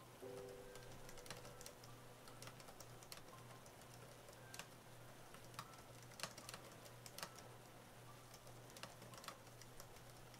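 Faint, irregular key clicks from an AlphaSmart portable word processor's keyboard being typed on steadily.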